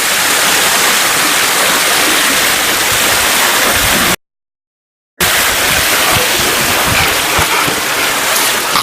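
Steady loud rushing noise that cuts out completely for about a second midway through, then resumes.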